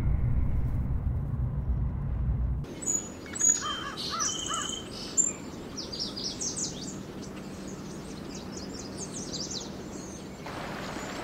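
A low vehicle rumble cuts off about two and a half seconds in, giving way to birds chirping and singing, many short high calls and trills over a soft outdoor hiss.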